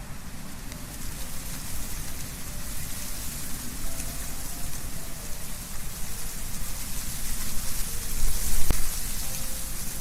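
Wind blowing through trees, with leaves rustling in a steady hiss that swells in a stronger gust about eight seconds in.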